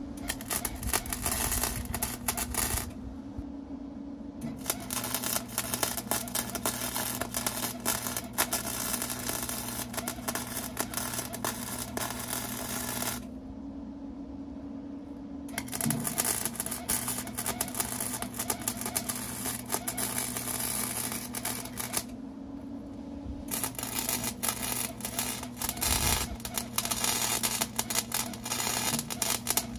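Wire-feed welder arc crackling as beads are laid on square steel tubing, in four runs of roughly three to nine seconds each. The welder's steady hum fills the short pauses between the runs.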